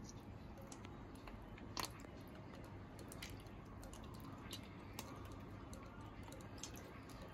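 Faint scattered clicks and squelches of a hand-turned chakli press squeezing hot cornflour batter out as noodles, with one sharper click about two seconds in.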